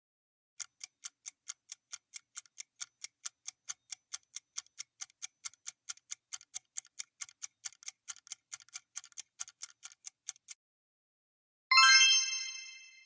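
Quiz countdown-timer sound effect ticking evenly, about four ticks a second, for about ten seconds. It stops, and a second later a bright chime rings out and fades, signalling that the correct answer is revealed.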